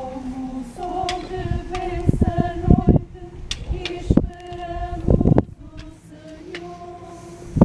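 Voices singing a slow hymn together in long held notes. A few heavy low thumps break in about two, four and five seconds in.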